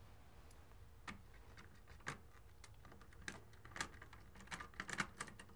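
Faint, scattered light clicks and taps of a small screwdriver against an old thermostat's plastic base and screw terminals, coming more often near the end.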